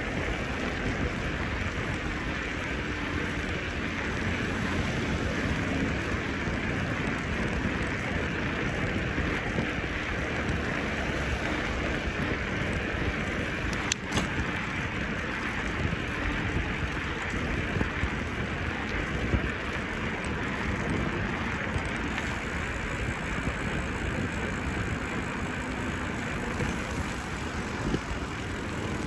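Steady rumble and hiss of a bicycle in motion, recorded from the bike itself, with a sharp click about halfway through.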